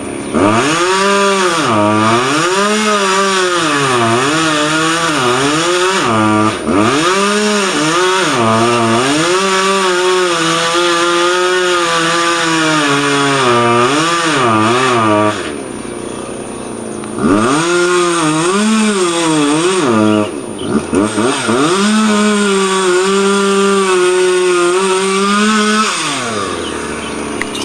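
Two-stroke chainsaw running hard, its engine speed swinging up and down over and over as it cuts. It drops to idle about halfway through, revs back up, and winds down again near the end.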